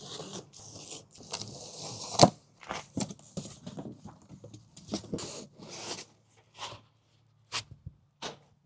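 A large cardboard carton being cut open and unpacked: a box cutter slitting the packing tape, then cardboard flaps and paper packing scraping and rustling as they are pulled open, in a string of short irregular sounds. A sharp knock about two seconds in is the loudest.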